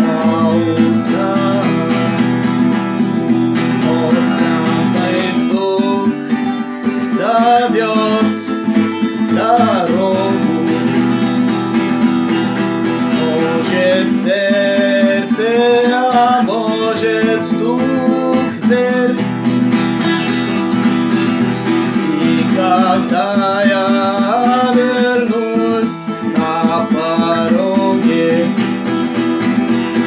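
Acoustic guitar strummed in steady chords while a man sings along.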